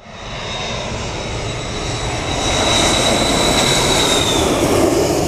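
Jet airliner passing low overhead on landing approach, gear down. Its engine roar swells in over the first couple of seconds and then holds loud, with a thin high turbine whine through the middle.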